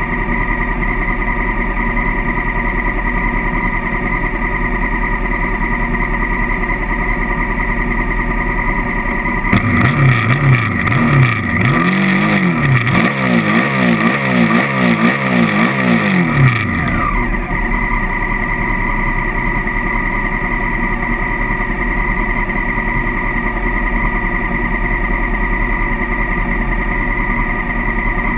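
Honda CRF1000L Africa Twin's 998 cc parallel-twin engine idling steadily with the bike at a standstill. Starting about a third of the way in, it is revved in a run of throttle blips lasting about seven seconds, its pitch rising and falling several times, before it settles back to idle.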